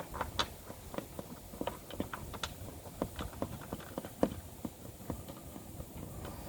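Scattered light clicks and taps, a few a second and irregular, from hand tools and bolts being handled while a skid plate is fitted back under a vehicle.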